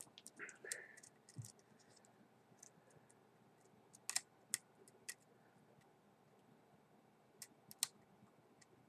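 Faint, scattered clicks and scrapes of a hook pick and tension wrench working the pins of a 6-pin pin-tumbler lock while the pins are set again one by one. The sharpest clicks come about four seconds in and twice near the end.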